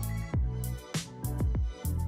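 Background music: a beat track with deep bass and a drum hit about every half second.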